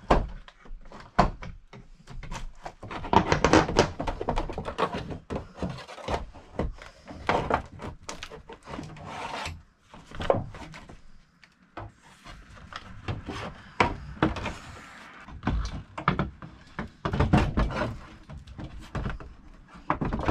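Irregular wooden knocks, thunks and scraping as an old window is pried and pulled out of its wooden frame.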